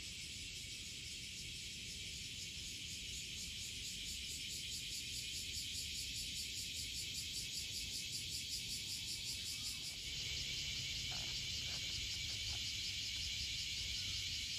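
Chorus of cicadas, a high droning with a quick pulsing beat; about two-thirds of the way through it changes to a steadier, slightly louder drone.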